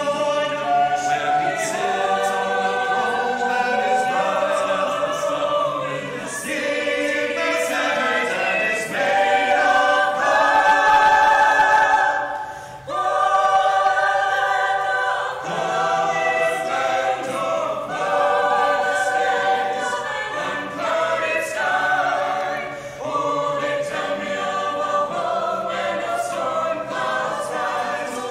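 Small mixed-voice choir singing unaccompanied in close harmony. The low voices drop out briefly about halfway through, then come back in under the upper parts.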